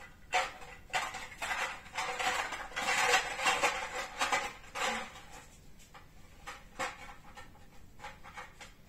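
A woman making breathy huffing and panting animal noises for a tiger hand puppet, a run of short breaths over the first five seconds or so. After that it goes quieter, with a few faint clicks from the props being handled.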